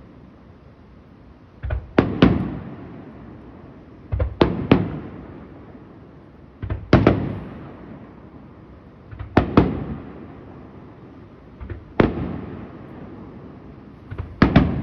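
Aerial fireworks shells bursting close by: loud bangs in quick pairs and triples, a new cluster about every two and a half seconds, each followed by a fading rumble of echo.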